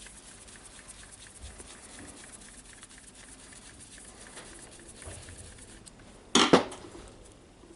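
Faint handling noises of small wires and parts on a workbench, then a brief, loud metallic clatter about six and a half seconds in.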